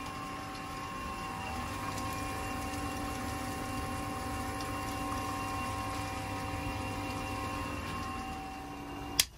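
Swimming pool pump running during the first backwash of a sand filter after a sand change: a steady motor hum over water rushing through the multiport valve. It cuts off with a sharp click near the end.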